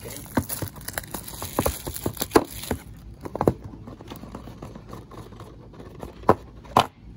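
Small cardboard die-cast car boxes being handled and knocked against one another, with a plastic bag crinkling, in quick clicks and rustles for the first three seconds. Then quieter, with a few single knocks near the end.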